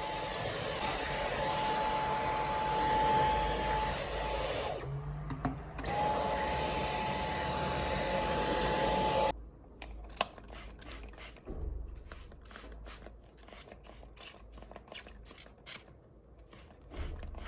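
A household appliance motor running with a steady rushing noise and a high whine. It switches off about five seconds in, comes back on a second later, and stops suddenly a little past the middle. After that come a string of light clicks and taps.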